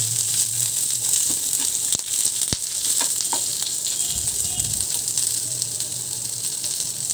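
Sliced onions sizzling steadily in hot mustard oil in a kadhai as they are sautéed, with a few light clicks of the spatula against the pan about halfway through.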